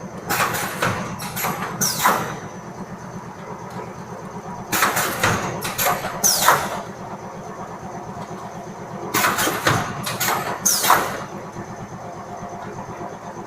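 Automatic multi-line cup filling and sealing machine running: a steady motor hum with a loud burst of hiss and clatter about every four and a half seconds as it works through each cycle.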